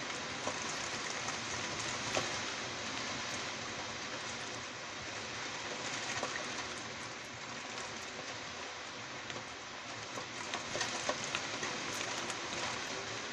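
Summer thunderstorm rain falling steadily: an even hiss with scattered sharp taps of drops striking nearby surfaces.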